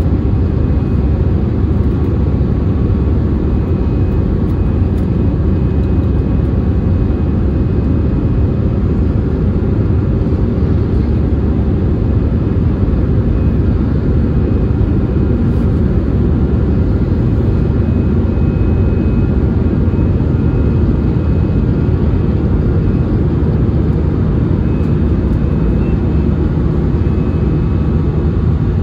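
Steady, loud drone of an Airbus A320-216's CFM56-5B jet engines heard from a cabin seat over the wing, with a faint high whine running over the low rumble.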